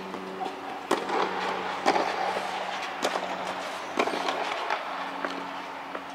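Tennis balls struck by rackets and bouncing on a clay court during a serve and rally: sharp pops about once a second, with a steady low hum underneath.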